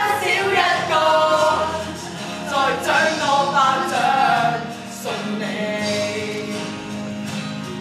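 Several voices singing together on stage.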